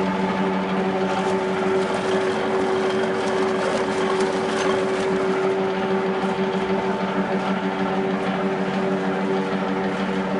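Small screw oil press for peanuts running steadily: an even, pitched machine hum from its drive, with faint light ticking over it.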